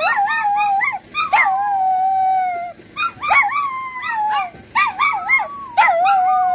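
Small dog howling, several long wavering howls broken by short pauses, set off by an ice cream truck's jingle.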